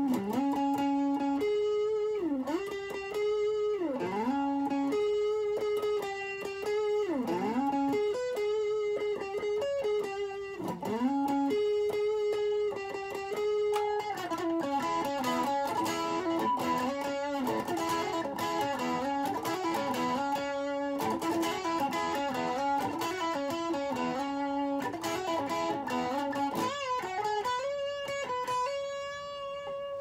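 Telecaster-style electric guitar played solo: long held single notes that repeatedly swoop down in pitch and back up, then about halfway through a quicker melodic run of many short notes, with more swooping slides near the end.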